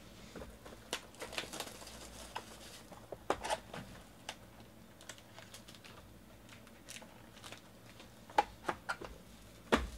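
Cardboard trading-card box and its plastic wrapping being handled: soft rustling of plastic and scattered light taps and clicks as the box is opened and foil packs are pulled out, with a few sharper taps near the end.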